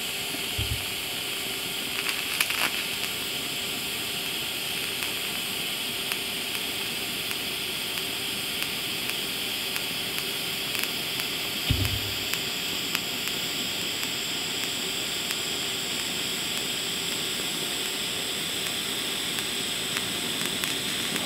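TIG welding arc on 4130 chromoly tubing, hissing steadily as the bead is laid. A single low knock about twelve seconds in.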